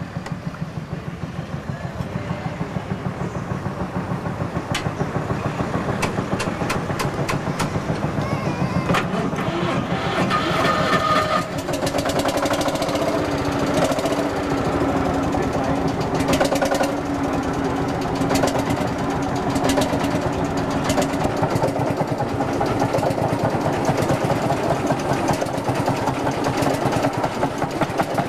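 Vintage tractor engine running with a rapid, even beat. It grows louder about ten seconds in and then settles into a steadier hum.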